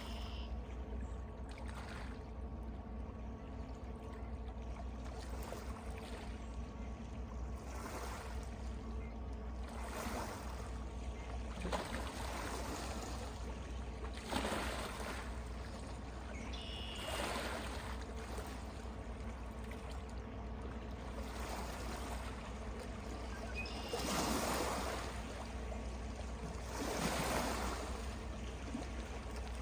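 Small waves lapping in gentle swells every two or three seconds over a steady low rumble, with a few faint, short bird calls.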